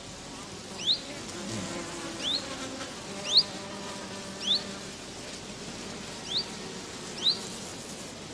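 A flying insect buzzing steadily, with a bird's short rising chirps repeating about once a second.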